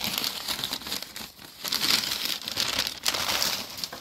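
Crumpled newspaper packing rustling and crinkling as hands dig through a plastic tote. It comes and goes unevenly, loudest about two seconds in.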